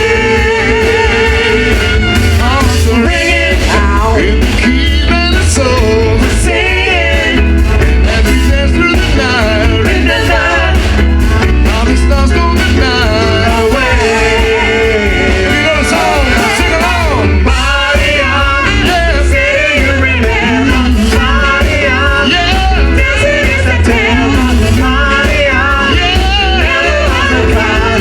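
Live band playing a Motown song, with a lead singer over guitar and a strong, steady bass line.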